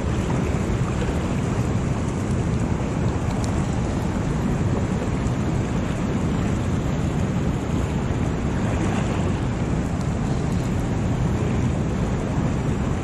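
Steady rush of churning whitewater below a lake spillway, an even, unbroken water noise.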